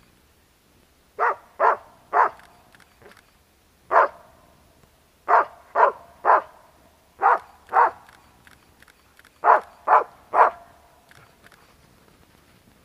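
Hunting dog barking at a squirrel it has treed: twelve sharp barks in short runs of two or three, with pauses of about a second between runs. This is the dog announcing treed game.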